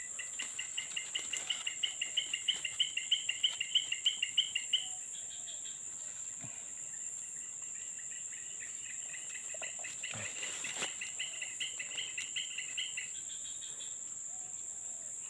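Wild insects droning in a steady high whine, with a repeated chirping call of about five notes a second. The call grows louder over about five seconds and stops, then comes again more softly.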